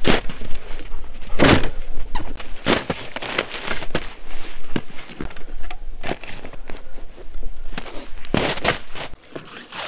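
Gear being loaded onto a plastic pulk sled in snow, with boots crunching: a string of irregular thuds, scrapes and rustles as a heavy canvas duffel bag and a dry bag are set on the sled. The loudest thud comes about one and a half seconds in.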